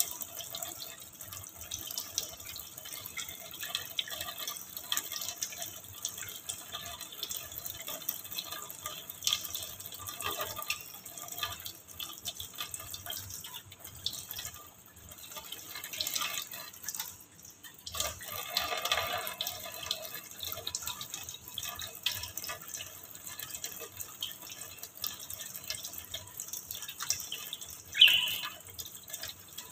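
Kitchen tap running, its stream splashing onto a wire birdcage and dripping into a stainless-steel sink. A short sharp sound stands out near the end.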